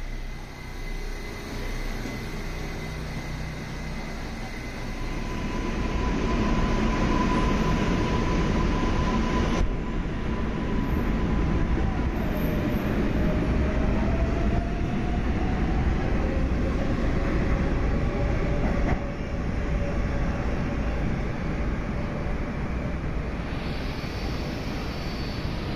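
New York City Subway R188 train moving along the platform: a steady rumble of wheels and traction motors, getting louder a few seconds in, with a faint motor whine that rises slightly in pitch midway.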